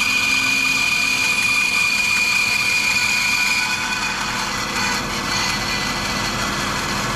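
Laguna 14-inch bandsaw running while resawing a board, with a steady high tone from the cut that fades about four seconds in as the timber stops feeding, leaving the saw running on its own. The board has jammed on the blade guide, which was not raised high enough.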